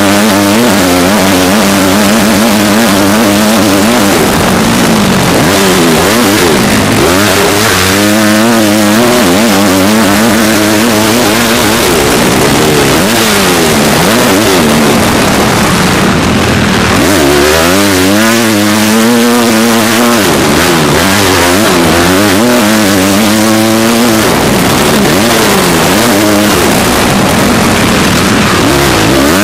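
Motocross bike engine revving hard at race pace, its pitch climbing and dropping again and again as the rider shifts and rolls off for corners, heard from on the bike with a constant rush of wind and engine noise.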